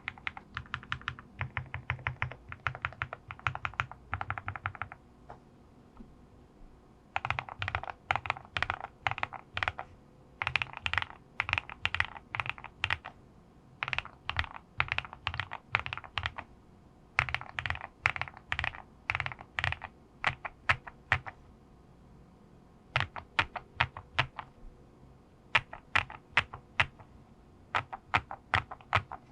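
Typing on a QK65 custom mechanical keyboard with lubed linear switches (Oil King housings with NK Cream stems) on an aluminum plate: quick runs of keystrokes broken by short pauses, thinning to scattered single presses and pairs near the end.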